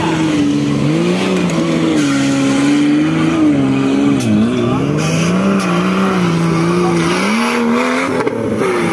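Side-by-side off-road buggy's engine revving under load as it climbs through a muddy obstacle. The pitch rises and falls with the throttle, drops about four seconds in, then climbs again toward the end.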